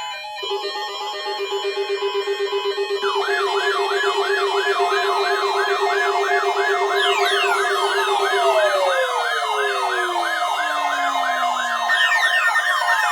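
Several electronic siren tones layered together. A fast-warbling tone sounds first; from about three seconds in, a rising wail repeats about three times a second. From about seven seconds in, many siren tones slide down in pitch, and a fresh set starts sliding down near the end.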